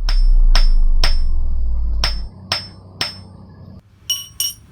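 Hammer striking a blacksmith's anvil: six ringing blows about half a second apart, in two groups of three, over a low hum that stops about halfway. Near the end come two lighter, higher-pitched metallic clinks.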